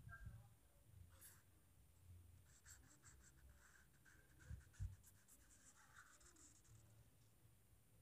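Faint marker strokes scratching and squeaking on the drawing surface as a cartoon is drawn, with a soft low knock about five seconds in.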